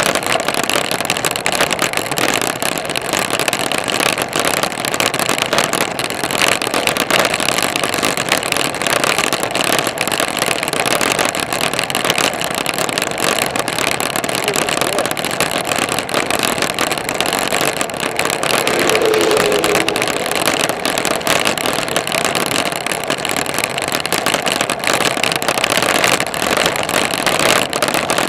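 Loud, steady rush of wind and road noise on a handlebar-mounted camera while riding along a paved road.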